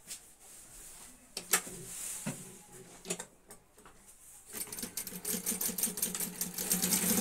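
Industrial flatbed sewing machine stitching a hem through thin cloth: a couple of short bursts, then a steady run of rapid needle strokes with a motor hum from about four and a half seconds in, the loudest part.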